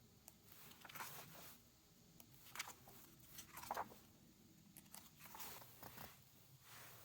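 Faint rustling and crinkling of packaging being handled, a few short rustles spread through otherwise quiet room tone.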